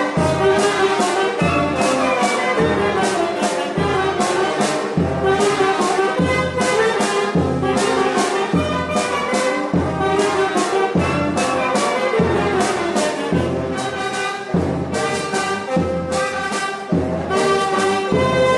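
Youth concert band of saxophones, trumpets and other brass playing a piece together, with a steady beat about twice a second.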